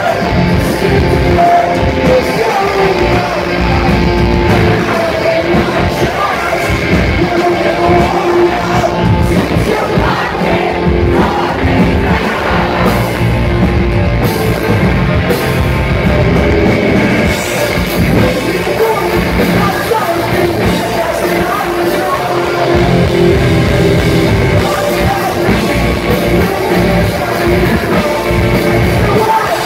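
Pop-punk band playing loud and live: distorted electric guitars, bass and drums with a singer.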